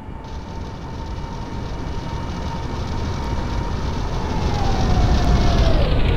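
Aircraft passing low overhead: a steady engine whine over a rumble grows louder, then falls in pitch near the end as it goes by.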